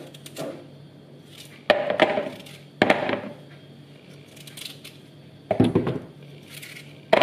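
Peeled raw potatoes being quartered with a knife by hand, with four sharp knocks as the cut pieces drop into a plastic bowl.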